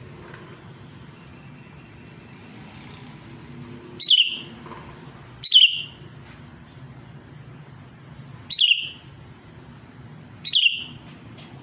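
A caged sooty-headed bulbul (kutilang) giving four short, loud calls, each a quick downward sweep, starting about four seconds in and spaced one to three seconds apart: the bird calling out to a rival.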